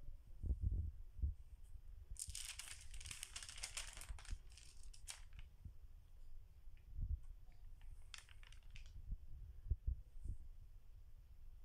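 Pages of a stamp stockbook being turned: a crinkly rustle of the stiff pages and their translucent interleaves lasting about three seconds, then again briefly later on, with low thumps of the book being handled.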